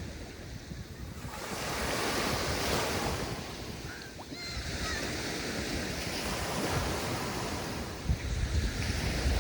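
Mediterranean sea waves washing in and breaking on the shore, swelling in surges a few seconds apart. Wind buffets the microphone near the end.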